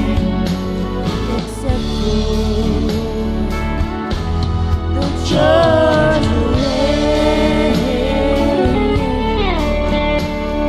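Karaoke singing: a voice over a backing track with guitar. In the second half the voice holds long, wavering notes and slides down near the end.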